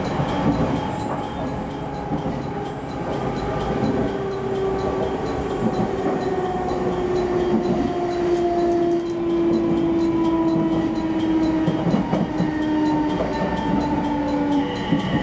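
Electric commuter train running on an elevated track, heard from the cab: steady wheel-and-rail rumble with a motor whine that slowly falls in pitch as the train slows toward a station. New steady tones come in near the end.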